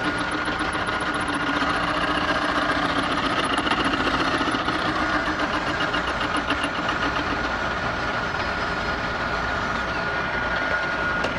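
Milling machine running as the cutter in its spindle makes a shallow 3/1000-inch pass in reverse across a metal vise jaw, cutting a knurl-like pattern of notches. A steady whine sits over the machine noise, with an even, fast ticking from the cutter that fades in the second half.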